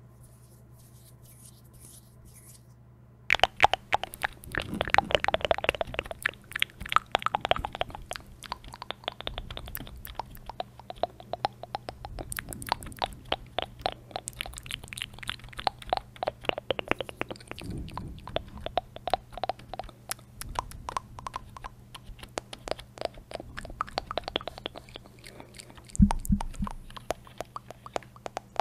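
Close-miked ASMR mouth sounds, a rapid run of wet clicks and smacks, mixed with tapping on a backlit computer keyboard. They start suddenly about three seconds in, after a faint low hum, and a low thump stands out near the end.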